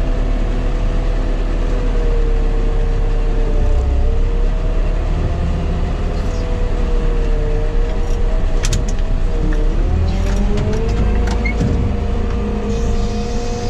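Heavy telehandler's diesel engine running under load as the machine drives over a silage pit to roll and flatten the grass, its engine note dipping and picking up again a few times.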